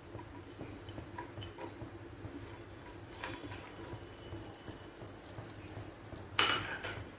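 Cashews, almonds and raisins frying in a little ghee in a nonstick frying pan: a faint, steady sizzle with light scraping of a silicone spatula stirring them, and a brief louder noise near the end.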